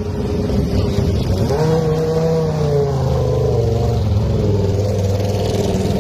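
Car engine running, its pitch rising sharply about a second and a half in, then sinking slowly and settling to a steady note.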